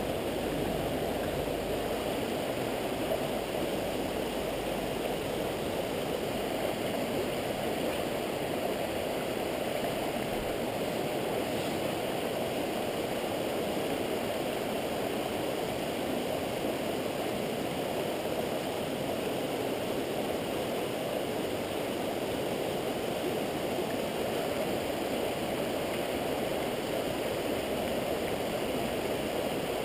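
Steady rush of a shallow mountain stream running over rocks and riffles.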